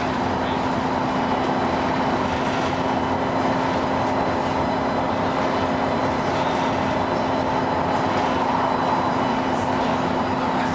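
Cabin noise of a LiAZ 6213.22 articulated city bus driving: steady engine and road noise with a constant low drone.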